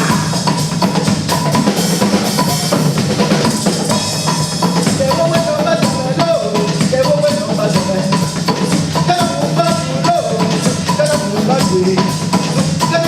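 Music with a steady drum-kit beat under a melody.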